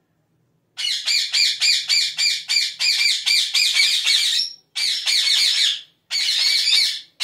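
Green parakeets squawking in a rapid series of harsh, wavering calls, about four a second, starting about a second in and broken by two or three brief gaps.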